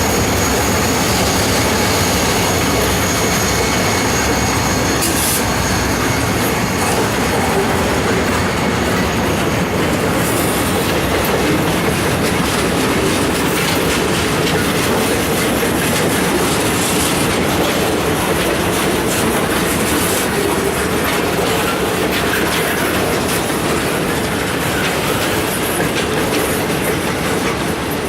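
Long freight train's cars rolling past at close range, a steady loud rumble with wheels clacking over the rail joints and crossing.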